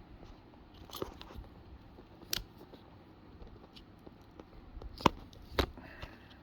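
Folding pocket knife being worked open one-handed: four separate sharp clicks with handling noise between them, the loudest about five seconds in.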